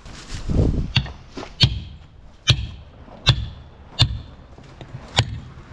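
Wooden caulking mallet striking a caulking iron held in the plank seams of a wooden hull: a series of sharp, ringing knocks, about one every three-quarters of a second.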